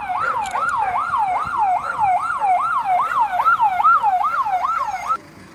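Ambulance siren on its fast yelp setting: a loud wail sweeping up and down about three times a second. It cuts off suddenly near the end.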